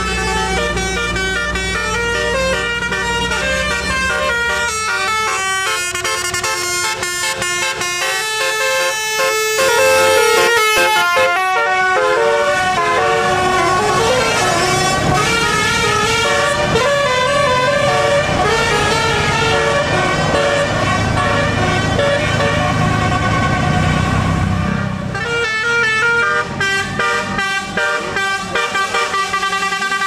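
Bus telolet horns, sets of multi-tone air horns, playing quick melodic tunes note by note over the low running of a bus engine; a different horn tune takes over about twenty-five seconds in.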